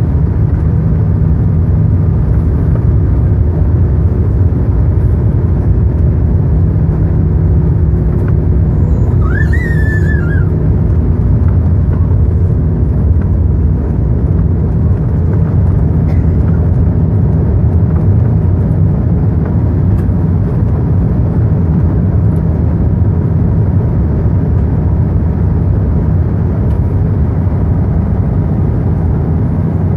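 Airbus A380's Rolls-Royce Trent 900 engines at takeoff power, heard inside the cabin over the wing: a loud steady low rumble as the aircraft rolls down the runway and lifts off.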